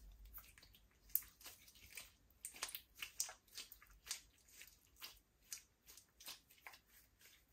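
Hands squeezing, stretching and folding a glossy glitter slime, giving a faint run of irregular wet clicks and squelches, two or three a second.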